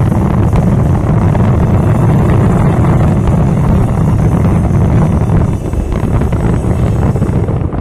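Dense barrage of fireworks shells bursting in quick succession, merging into a continuous loud rumble.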